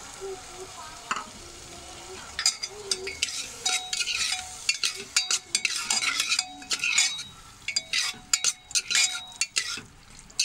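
Soaked dal sizzling in oil and masala in a pressure cooker while a metal ladle stirs it. A steady sizzle at first, then from about two and a half seconds in, repeated scraping and clinking strokes of the ladle against the cooker's side.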